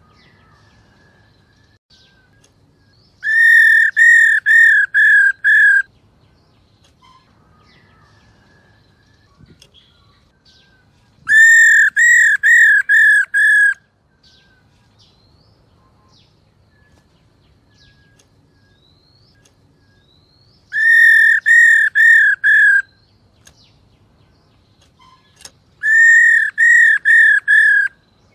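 Black-throated laughingthrush calling: four bouts of five or six loud, clear whistled notes, each note arching and falling, about two or three a second, with pauses of several seconds between bouts.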